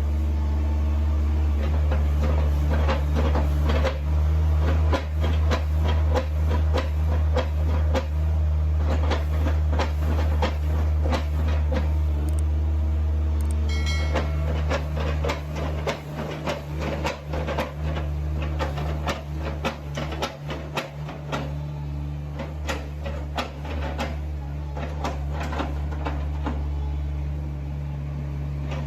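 A heavy machine running with a steady low drone, overlaid by continual rattling and clanking. There is a brief high-pitched squeal about halfway through, and the clatter turns more uneven in the second half.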